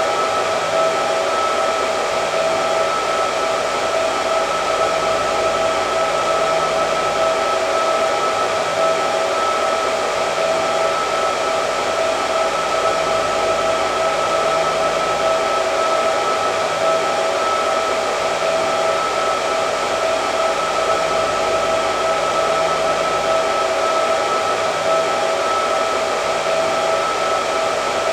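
Electric hair dryer running continuously: a steady rush of air with an even motor whine on two fixed pitches.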